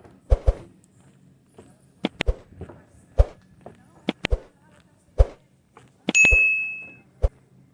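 Footsteps on hard ground: sharp steps about one a second, some in quick pairs. About six seconds in a short bright metallic ring sounds and fades within a second.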